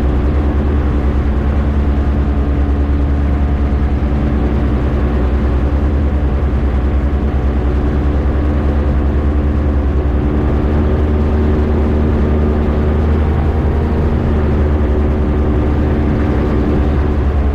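Rotax 582 two-stroke twin engine and propeller of an X'Air microlight running steadily: a loud, even drone with a strong low hum.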